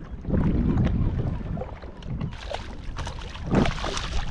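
A hooked summer flounder (fluke) splashing and thrashing at the surface beside a kayak, starting about two seconds in and loudest near the end. Wind on the microphone rumbles underneath.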